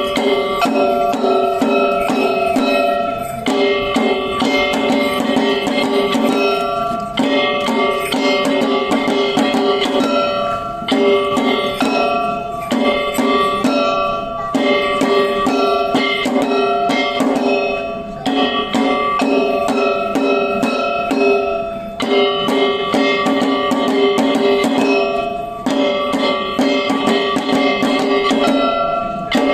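Shishimai (lion dance) music of Kagawa: drums and metal percussion beaten fast over ringing pitched tones, in phrases that repeat about every three and a half to four seconds.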